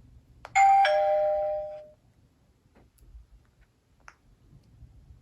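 Sony Ericsson W950i phone speaker sounding a two-note descending electronic chime, a ding-dong, about half a second in, fading away over about a second. A click comes just before it and a few faint clicks follow later.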